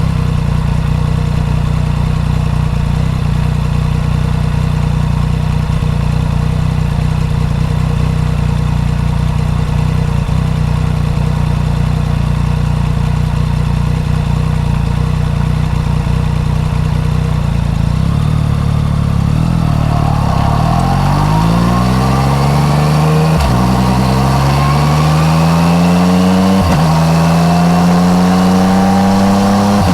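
Yamaha MT-09 Tracer's three-cylinder engine through an Akrapovic exhaust, running steadily at low revs, then accelerating hard from about two-thirds of the way in, its note rising, with two short breaks for gear changes.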